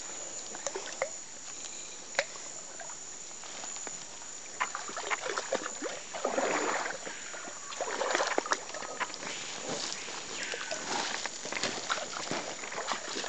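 Rustling and swishing of a freshly cut açaí palm fruit bunch and forest undergrowth as it is handled and carried, with scattered sharp snaps and clicks. The rustling comes in several swells, louder about six, eight and eleven seconds in.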